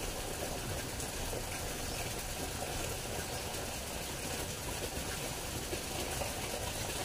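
Steady outdoor background noise: an even hiss with a low rumble underneath, and no distinct sound standing out.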